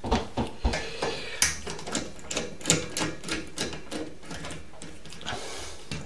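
Irregular sharp clicks and taps of small plastic and metal thermostatic-radiator-valve fittings (an adapter collar) being handled and worked by hand, thickest in the first half and sparser later.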